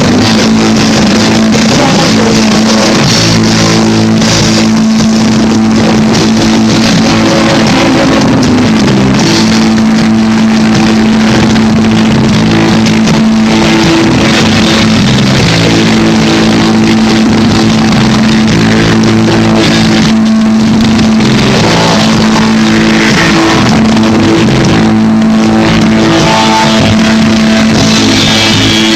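Loud instrumental rock band music: distorted electric guitars hold long droning notes over bass and drums, with no singing.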